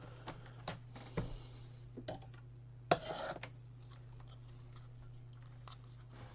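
Light clicks and a few short scrapes of circuit boards and fittings being handled and worked loose inside a Magstim 200 stimulator, the loudest scrape about three seconds in, over a steady low hum.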